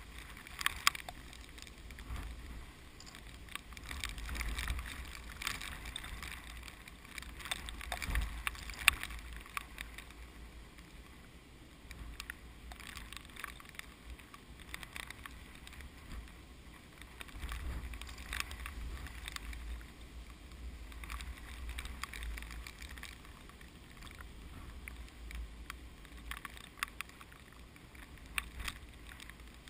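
Strong typhoon wind blowing in gusts that swell and fade every few seconds. The wind rumbles on the microphone, and the swaying rice plants rustle and crackle.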